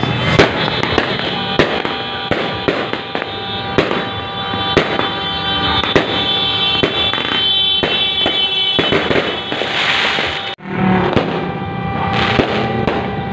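Aerial fireworks going off one after another: many sharp bangs with crackle between them. The sound cuts out for a moment about ten and a half seconds in, then the bangs resume.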